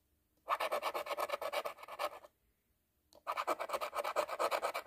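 Scratch-off lottery ticket being scratched, rapid back-and-forth rasping strokes at about nine a second in two bursts, with a pause of about a second between them.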